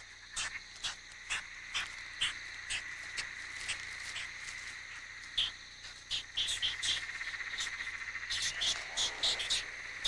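Night insects chirping: short high chirps about twice a second over a steady high trill, which takes on a fast pulsing from about two-thirds of the way in.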